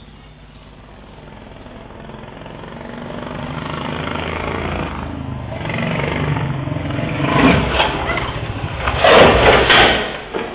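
Motorcycle engine growing steadily louder, loudest near the end, then dropping away sharply.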